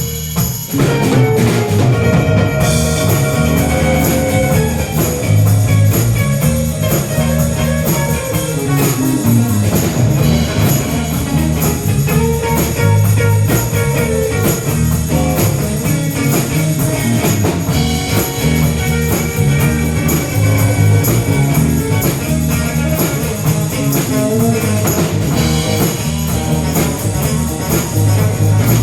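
Band playing a rock song with guitar and drum kit over a moving bass line, instrumental with no singing.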